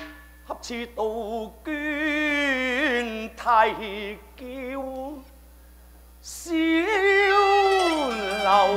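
Cantonese opera singing: a single voice sings short phrases with wide vibrato, then a long held note that slides downward near the end.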